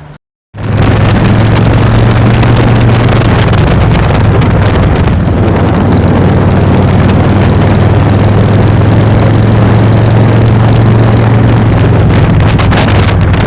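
Motor scooter's small engine running loudly at a steady speed, its pitch unchanging throughout. It cuts in suddenly about half a second in.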